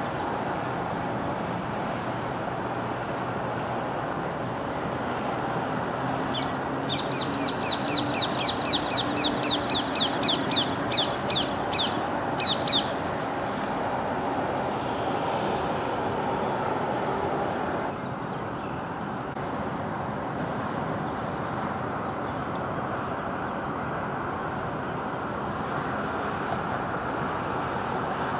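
Steady road traffic noise. About seven seconds in, a bird joins with a quick series of harsh chattering calls, two or three a second, lasting about six seconds.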